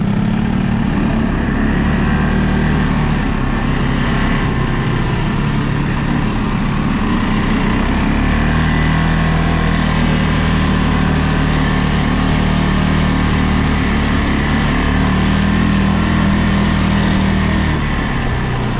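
ATV engine running steadily while being ridden off-road, its note shifting up and down a little as the throttle changes.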